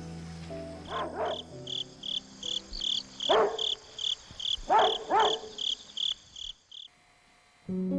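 Crickets chirping in an even rhythm, about three short high chirps a second, with a few louder falling calls from another source sweeping down over them. The chirping stops about a second before the end.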